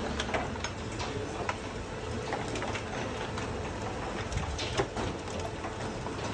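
Waste-sorting machinery running: a rotating trommel screen and conveyor give a steady low rumble with a faint hum, and mixed municipal waste clatters and knocks irregularly as it tumbles, with one louder knock near the end.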